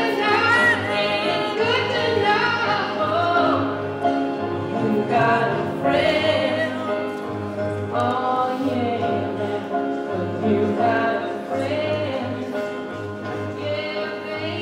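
A group of women singing a hymn together in unison, held notes swelling and falling, over a steady low note underneath.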